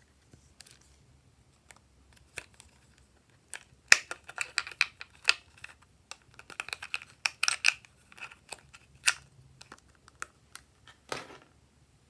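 Hard plastic clicking and rattling as a snowflake-shaped toy makeup compact is opened and the nail polish bottles inside are handled: a quick run of sharp clicks and knocks starting about four seconds in, then a short scrape near the end.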